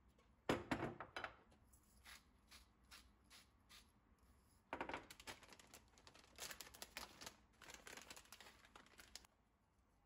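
Quiet kitchen handling sounds on a countertop: a few sharp knocks and clicks as things are set down, then a few seconds of crinkling and rustling as a plastic bag is handled and opened.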